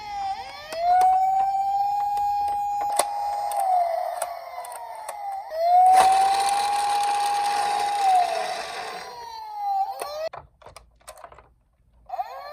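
Toy police car's electronic siren wailing: a tone rises quickly, holds, then slides slowly down, twice, with a whirring noise over the second wail and scattered sharp clicks. It stops about ten seconds in and starts again just before the end.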